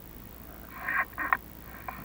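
Chimney inspection camera scraping and knocking against the masonry flue walls as it is lowered: two short rasping scrapes, the second ending in a sharp click, then a faint tick near the end.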